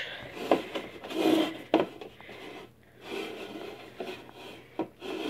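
Handling noise from a hand-held phone camera: rubbing and scraping against the microphone, with a few sharp knocks.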